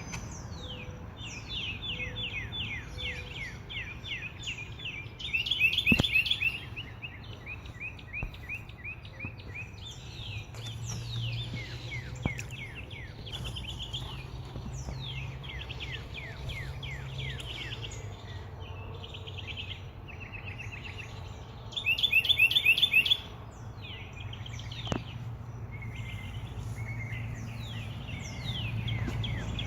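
Songbirds singing: series of quick down-slurred whistled notes and fast trills, with the loudest rapid trilling bursts about six seconds in and again around twenty-two seconds.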